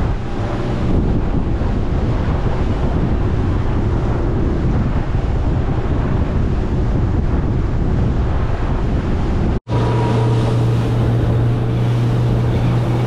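Small boat running at speed through swell: wind buffeting the microphone over rushing, splashing water. After a sudden cut about ten seconds in, the boat engine's steady low hum comes through more clearly.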